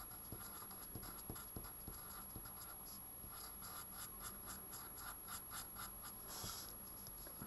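A pen writing on paper: faint, quick scratching strokes as a word is written out by hand.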